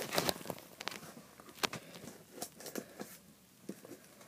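A cardboard shipping box being cut and opened by hand: scattered light clicks and crackles, sparser near the end.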